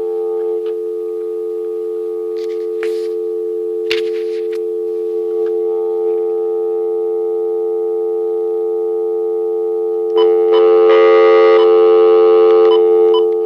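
Landline dial tone playing through a Uniden cordless phone: a steady two-note hum. A few faint clicks come about three and four seconds in, and for the last few seconds the tone turns louder and harsher.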